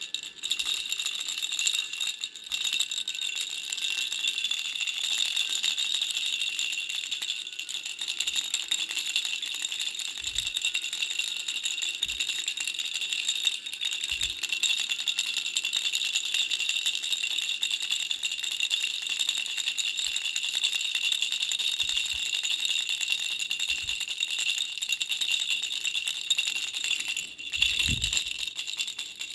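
Pink butterfly baby rattle being shaken continuously, a dense high rattling with a brief pause near the end and a few soft knocks.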